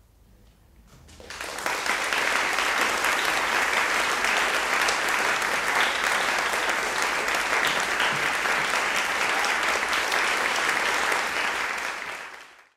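Audience applauding in a concert hall. The clapping starts about a second in, holds steady, and fades out at the very end.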